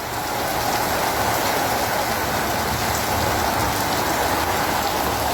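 Heavy rain pouring steadily in a strong windstorm.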